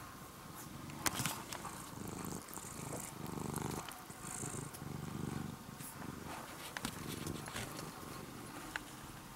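Domestic ginger-and-white cat purring close to the microphone, the purr swelling and easing in repeated rhythmic phrases. A sharp click about a second in is the loudest moment.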